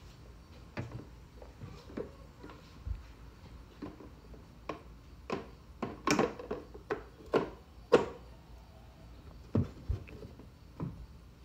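A 1986 Pontiac Trans Am's plastic tail lamp housing knocking and clicking against the car body as it is worked into place by hand: irregular knocks, loudest about six to eight seconds in.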